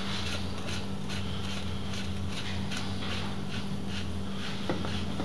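Top cap of a KYB closed-cartridge motorcycle fork being screwed down by hand: a run of soft, evenly spaced scraping ticks from the threads, about two to three a second, over a steady low electrical hum.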